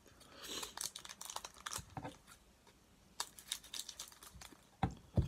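Trading cards and a foil booster-pack wrapper being handled on a table, with faint rustling and crinkling. Two soft knocks come near the end.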